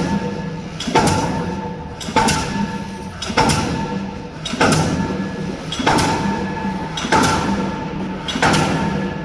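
K25 diesel pile hammer driving a spun concrete pile: sharp blows at a steady pace of about one every 1.2 seconds, each ringing briefly, over a steady machine drone.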